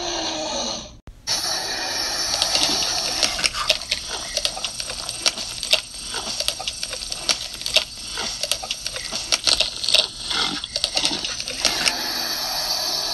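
A wet, gushing sound effect full of sharp crackles, like flesh being torn and eaten, as a toy dinosaur bites into a downed toy creature. It starts about a second in, after a brief cut.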